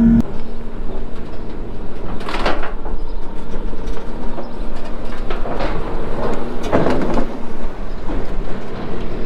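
Skid loader driving up onto a steel flatbed trailer: its engine runs under the clunks and creaks of the ramp and deck as the tyres climb. A few louder metallic clanks come about two, five and a half and seven seconds in.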